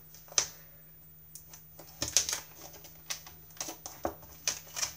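Scattered light clicks and taps of a bamboo kebab stick and hands on a tabletop as the stick is laid across a strip of tape and pressed down. The sharpest clicks come about half a second in and around two seconds in.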